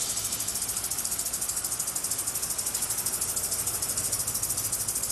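Adhesive tape being pulled off the roll and wound around an ankle: a continuous high, hissing rasp with a fast, even crackle.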